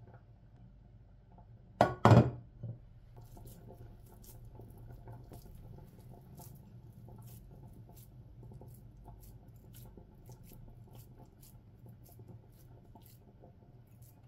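A glass baking dish is set down on the kitchen countertop with a short clatter of two or three knocks about two seconds in. After that come faint soft squishes and ticks as minced-meat köfte mixture is handled and pressed into shape by hand.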